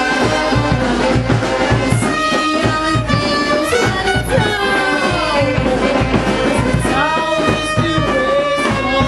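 Live brass marching band playing: sousaphones, saxophones and trumpet over a steady drum beat, with the horn lines sliding in pitch a few times.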